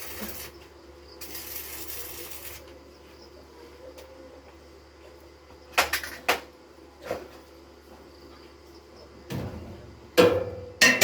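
Hammer blows on wood in building work: a few scattered knocks midway, then a quicker run of louder ringing blows near the end. Two stretches of hiss come first.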